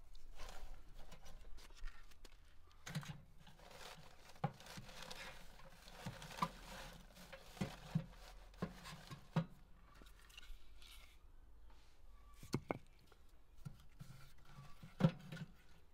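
Split firewood logs being pushed by hand into the firebox of a steel cauldron stove: irregular wooden knocks and scrapes of log against log and against the metal, with a few sharper knocks near the end.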